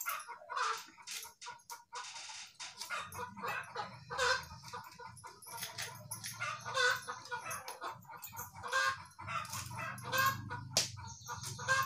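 Domestic hens clucking, mixed with short crisp clicks of fresh okra being cut on a vili, a curved blade fixed upright in a wooden base. A low hum sets in about three seconds in.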